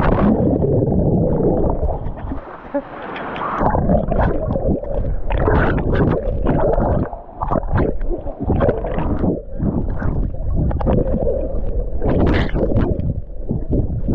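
Muffled underwater churning and gurgling of a waterfall's plunge pool, heard from below the surface, with the high hiss of the falling water cut off; irregular surges and bubbling come through it.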